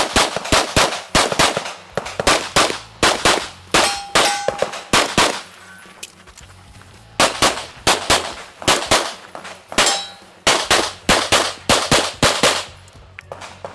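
Rapid pistol fire during a practical shooting stage run: a string of shots several a second, a pause of about two seconds while the shooter moves to the next position, then a second fast string that stops about a second before the end.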